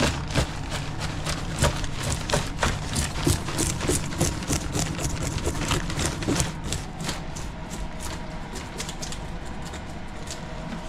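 Gloved hands handling fresh fish in a plastic bag, giving irregular crinkles and clicks that thin out after about seven seconds, over a steady mechanical hum.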